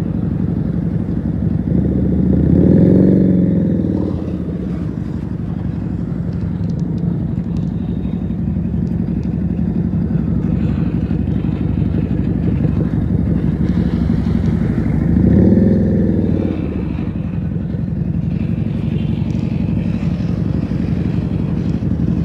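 Keeway SCR 250 motorcycle with a Rez Speed aftermarket exhaust running at low speed in slow traffic. The engine note rises and falls twice as the throttle is opened briefly, about three seconds in and again around fifteen seconds in.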